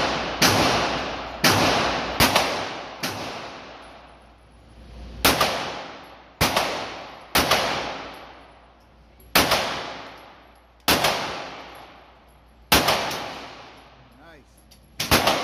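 Canik TP9 Elite SC 9mm pistol fired about a dozen times at a slow, uneven pace, roughly one shot every one to two seconds, with a short pause about four seconds in. Each shot rings out in a long echo off the walls of an indoor range, and two shots come in quick succession near the end.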